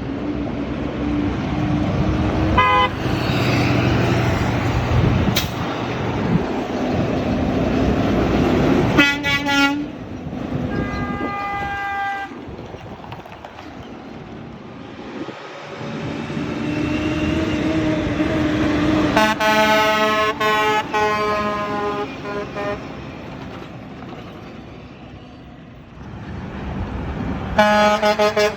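Passing trucks sounding their horns several times over steady road traffic. There is a short toot about three seconds in and a longer blast about nine seconds in. The longest blast comes around twenty seconds in, with several notes at once, broken into short pulses. Another blast comes near the end.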